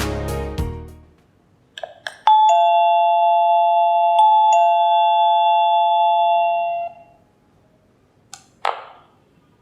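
Doorbell chime sounding a two-note ding-dong, a higher note then a lower one, struck again about two seconds later and ringing out for several seconds. A background music track fades out just before it, and a short thump follows near the end.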